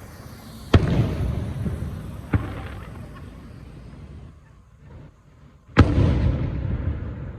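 Three sharp bangs, the second one weaker, each followed by a long rumbling fade.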